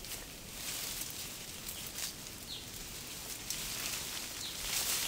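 Leaves and branches rustling faintly over a steady outdoor hiss, with two short high chirps about halfway through and near the end.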